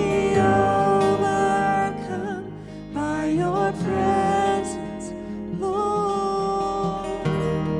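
Slow worship song performed live: a woman singing a sustained melody, accompanied by strummed acoustic guitar and keyboard.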